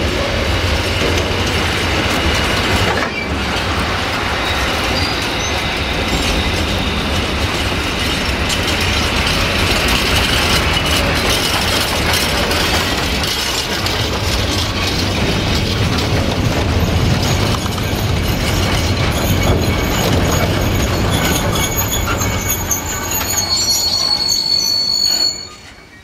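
Freight wagons of a train rolling past close by, with wheels rumbling and clattering on the rails. High metallic wheel squeal joins in during the second half and is strongest just before the noise cuts off abruptly near the end.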